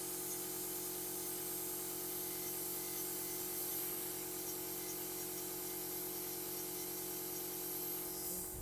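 Pedicure drill (micromotor handpiece) running steadily with a ball-head burr on the skin of a toe tip, a smooth whirring hum with a hiss over it, smoothing the area after a small corn was cut out of the callus. The motor stops near the end.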